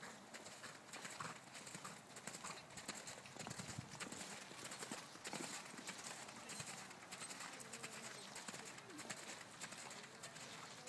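Faint hoofbeats of a ridden Irish Draught Sport Horse trotting on wet, muddy arena footing, a run of irregular dull knocks.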